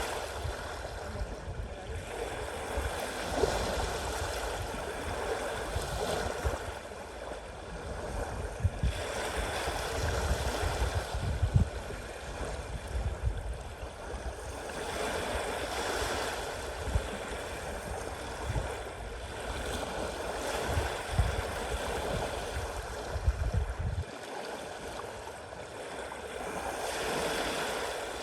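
Sea waves washing in and breaking, the surf swelling and easing every few seconds, with irregular low rumbles of wind buffeting the microphone.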